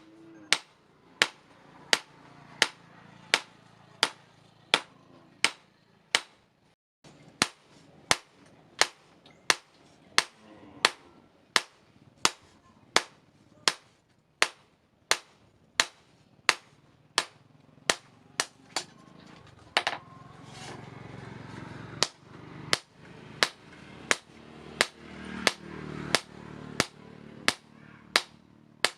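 Hand hammer striking steel on an anvil while forging a sword blade: evenly paced ringing blows, about three every two seconds, with a brief pause about seven seconds in.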